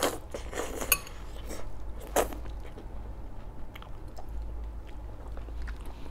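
Eating sounds: chewing, with cutlery clinking against a plate, one sharp ringing clink about a second in and a louder scrape or clatter just after two seconds.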